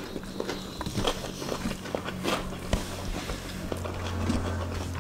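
Close-up eating sounds: chewing, lip smacks and fingers mixing rice and curry, heard as many small irregular clicks, over a steady low hum that grows louder in the second half.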